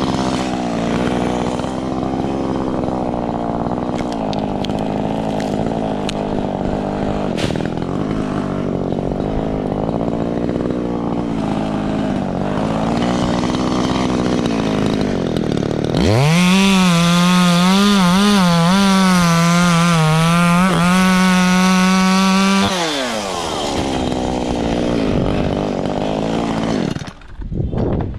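Echo CS-3510 chainsaw running and cutting branches, its engine pitch dipping and recovering over and over. About 16 s in it holds a louder, steady high rev for roughly seven seconds, then eases back down and falls away near the end.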